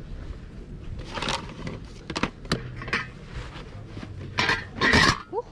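Rummaging through a flea-market box of odds and ends: small hard items knocking and clattering together in irregular clicks and rattles, loudest near the end.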